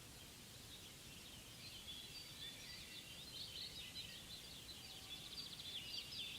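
Faint chorus of several songbirds chirping and trilling, growing busier about a second and a half in, over a soft low background hum.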